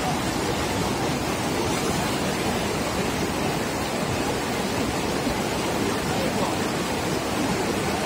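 Steady rushing of a swollen river in flood, an even wash of water noise.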